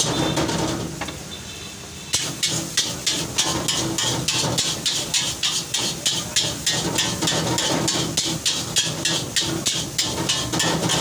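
Metal ladle and spatula clanking against a steel wok in quick, regular strokes, several a second, as noodles are stir-fried, over the sizzle of the frying. The strokes start about two seconds in.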